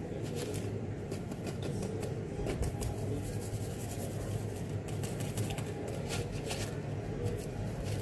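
Fingers rubbing crushed graham crumbs through a small wire-mesh strainer: a stream of irregular dry scratching and rustling, over a low steady hum.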